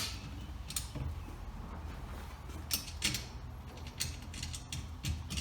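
A wrench tightening the nuts on the bolts of a wheelbarrow's leg cross brace, with irregular metallic clicks.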